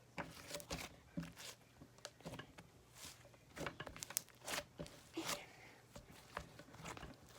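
Slime being kneaded and stretched by hand, giving soft, irregular little crackles and clicks.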